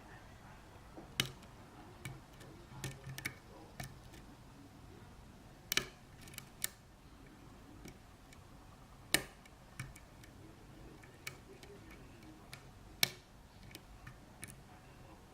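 Lock picks clicking and scraping inside a custom-pinned Sargent pin-tumbler cylinder as the pins are set one by one: irregular sharp clicks a few at a time, the loudest about a second in, near 6 and 9 seconds, and around 13 seconds.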